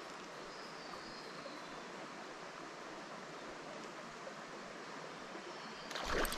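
Faint, steady outdoor hiss over a still creek, then about six seconds in a sudden surface splash as a small Australian bass strikes a cicada topwater lure.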